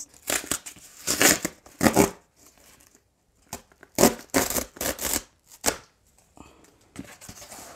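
Cardboard book mailer being torn open and handled: a run of short tearing and rustling sounds, with a pause of about a second in the middle, and then only faint handling near the end.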